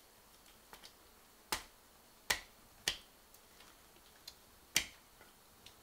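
Wood campfire crackling: a handful of sharp, irregular pops and snaps from the burning wood, four of them louder than the rest.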